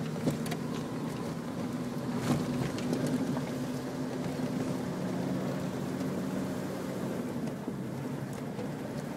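Off-road 4x4's engine running steadily at low speed, heard from inside the cab on a rough dirt track, with a few sharp knocks from the bumps, the loudest about two seconds in.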